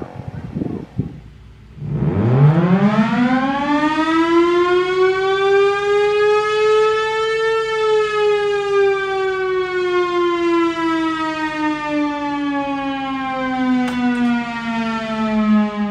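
Federal Enterprises Thunderbolt 1000 siren sounding a short alert. After a brief low dip, the wail climbs steeply from about two seconds in to its peak around the middle, then winds slowly down, with a steady low hum beneath.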